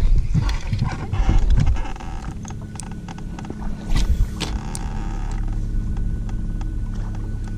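Spinning reel being handled and wound in, then a cast swishing out about four seconds in, over the steady electric hum of a bass boat's trolling motor.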